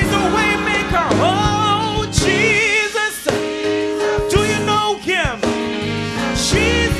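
Gospel song: a lead singer's voice with wavering held notes over a steady bass line and drum hits.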